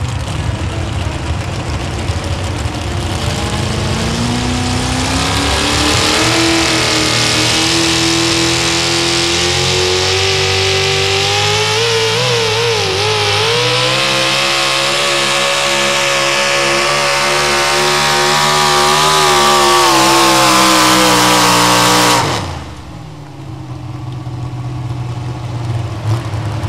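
Pro Stock four-wheel-drive pulling truck's engine revving up from idle as it launches, climbing steeply in pitch and held at high revs under load for about twenty seconds, with a brief waver in pitch partway through. Near the end the throttle is cut abruptly and the engine drops back to a low idle.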